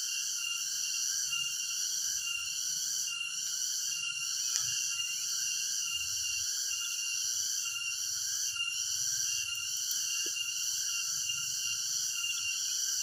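A steady insect chorus: several high, shrill buzzing tones held without a break, the highest one pulsing slightly.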